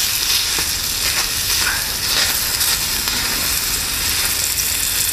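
Diced bacon sizzling hot in a small frying pan over an alcohol burner, with a utensil stirring and scraping the pieces around the pan.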